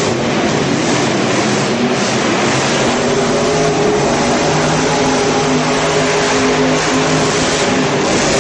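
Monster truck engine running loud and steady, its pitch holding mostly level with small shifts, over a wash of noise.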